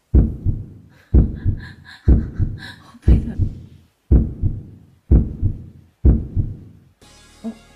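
A heartbeat sound effect: deep, loud lub-dub beats about one a second, seven in all, stopping near the end.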